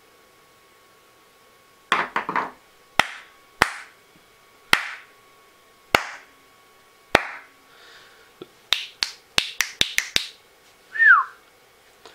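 A string of sharp hand claps and finger snaps: a few close together, then single ones about a second apart, then a quick run of about seven. Near the end comes one short whistle that falls in pitch.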